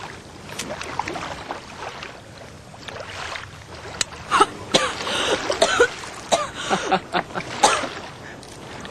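Water lapping and gurgling against rocks at the shoreline: a steady wash with sharp little splashes and gurgles, busier and louder from about four seconds in.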